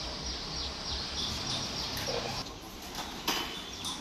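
Small birds chirping: a quick series of short, falling chirps, about four a second, that stops about halfway through. Underneath is a steady low street hum, and one sharp click sounds near the end.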